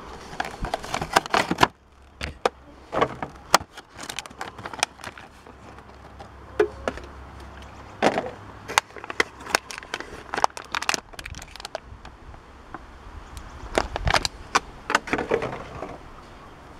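Thin clear plastic bag crinkling and crackling in bursts as hands handle it and pull a small plastic action figure out of it.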